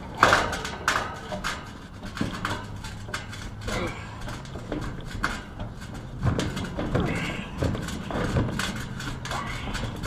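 Irregular metal clicks, knocks and scraping of hand tools working at an air-conditioner condenser fan motor's shaft and fan blade, over a low steady hum.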